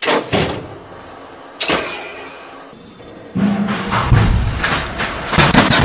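Soundtrack of a dramatic film clip: music with a heavy rumbling roar that grows louder about three seconds in.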